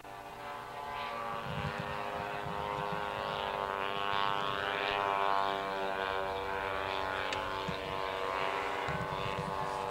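Radio-controlled model airplane engine running steadily, its pitch wavering slightly.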